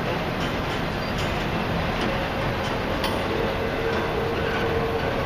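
Long, slow freight train of enclosed autorack cars rolling past, a steady wheel-on-rail noise with a few faint clicks. A faint whine comes in about three seconds in and lasts a second or two.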